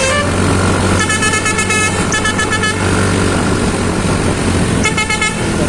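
A bus's basuri telolet musical horn sounding in three runs of rapidly stuttered chords: about a second in, around two seconds, and near the end. Under them runs the steady low rumble of the bus.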